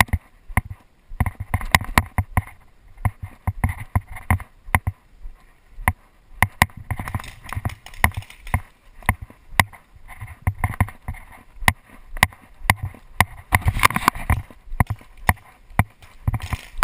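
Footsteps of a paintball player moving on grass and sand, with gear rattling: an uneven run of low thumps and sharp clicks, several a second.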